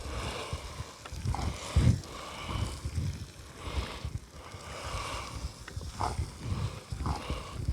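Food frying in a plough-disc pan over an open fire: a low sizzle with scattered crackles and knocks, over an uneven low rumble.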